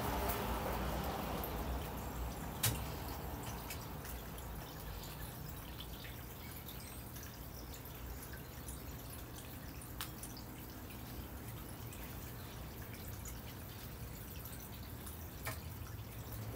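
Northwestern crow pecking food from a ceramic bowl: a few sharp taps of beak on the dish, the loudest about two and a half seconds in, with faint ticks between, over a steady low background hum. A rush of wingbeats fades out in the first second or so as a crow lands.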